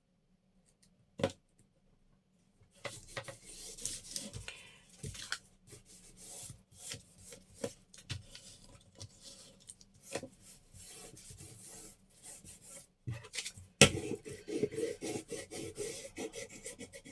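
Paper and tape being handled and rubbed by hand: a click about a second in, then irregular rustling, rubbing and scraping with scattered small clicks, and a sharper click near the end.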